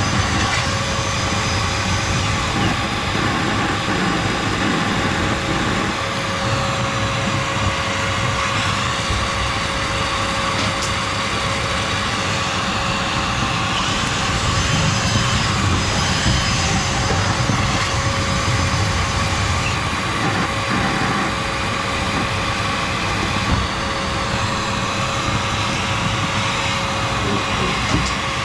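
Sweep's vacuum cleaner running steadily with a constant whine, sucking up soot from a wood stove.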